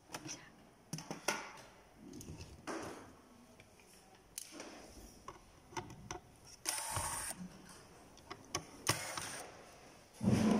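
Handheld electric screwdriver running in short bursts as it drives screws out of a projector's circuit board, among light clicks and taps of screws and plastic parts being handled.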